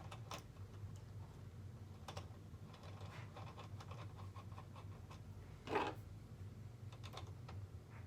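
Light clicks and scratches of small RC boat rudder parts and fasteners being handled and fitted back together, over a steady low hum. There is one louder short sound a little before six seconds in.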